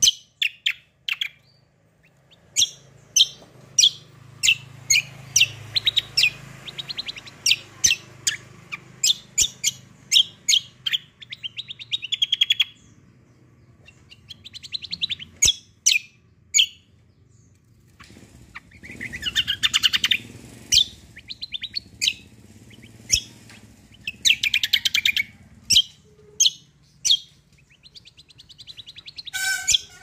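A caged kacial kombo (cucak kombo) songbird singing: a long run of sharp, high chirps broken by rapid rattling trills that come several times. A faint low hum sits underneath.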